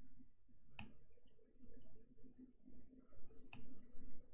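Two computer-mouse clicks, about three seconds apart, over a faint low hum.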